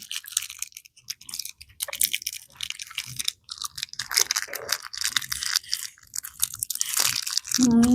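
Close-up eating noises from someone chewing a Pulparindo tamarind candy: irregular crackling, clicking mouth sounds, with a short hummed 'mm' near the end.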